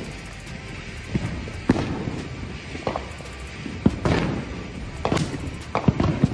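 Consumer fountain firework (Freedom Fireworks' Make the Grade) spraying sparks with a continuous hiss, broken by about ten sharp, irregular cracks and pops as its flying fish effects go off.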